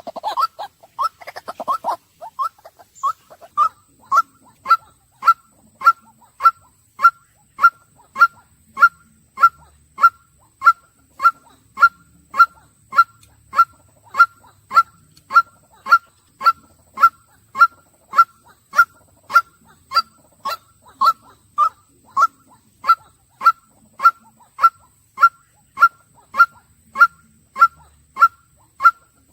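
White-breasted waterhen calling: after a brief jumble of rougher calls in the first two seconds, one short note repeated monotonously at an even pace, nearly twice a second.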